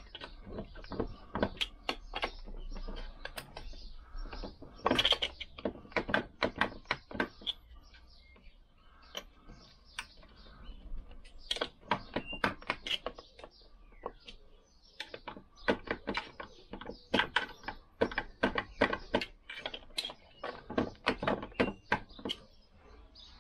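Irregular metallic clicks and knocks from a Lambretta gearbox part being worked loose by hand from its shaft, some in quick rattling runs.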